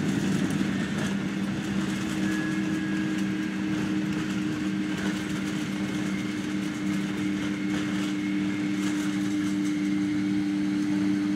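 Boeing 767 jet engines at low power, heard from inside the passenger cabin as the airliner rolls along the runway after landing: a steady hum with a low drone and a faint high whine.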